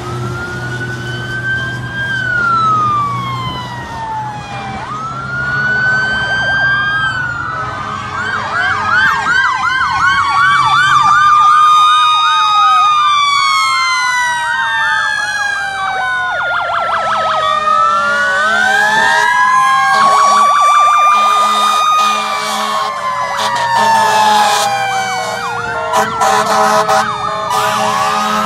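Several fire truck sirens wailing at once, their slow rising and falling tones overlapping, with fast yelping siren patterns breaking in a few times. Steady air horn blasts join in near the end.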